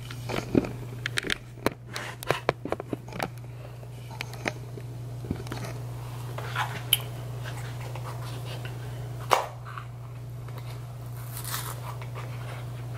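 Scattered small clicks, taps and rustles of objects being handled, thickest in the first few seconds, with one sharper click about nine seconds in, over a steady low hum.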